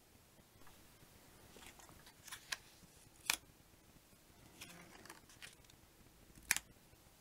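Cardstock number cards being handled, slid and set down on a table: faint papery scrapes and a few sharp taps, two of them standing out about three seconds apart.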